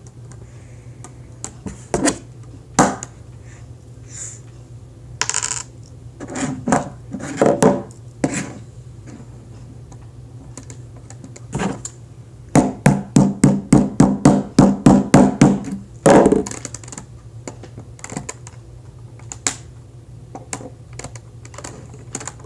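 Small hammer tapping plastic Rubik's Cube pieces into place: scattered single taps, then a fast run of about fifteen taps, some four or five a second, about halfway through, and one more knock just after.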